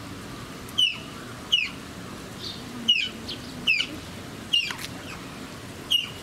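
Asian small-clawed otter calling with short, high-pitched chirps that fall in pitch, about six of them, repeated roughly once a second.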